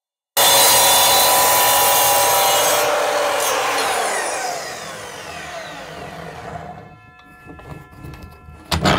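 Evolution R255SMS 10-inch sliding miter saw cutting through a wooden block, the sound cutting out briefly at the very start, then the motor and blade winding down with a falling pitch after about three seconds. A short knock near the end.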